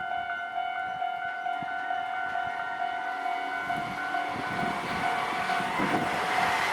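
Japanese level-crossing warning bell ringing steadily, with the rumble of an approaching train building from about halfway through and growing louder near the end.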